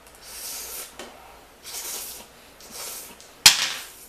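Noodles slurped in three short hissy pulls, then a sharp click about three and a half seconds in.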